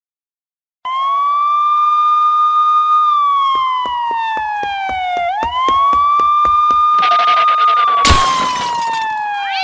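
Police siren wailing: a tone that starts about a second in, rises quickly, holds, then glides slowly down and sweeps up again, twice. Under it comes a quick run of knocks, about four a second. Near the end a loud crash comes as a trash can is knocked over and spills.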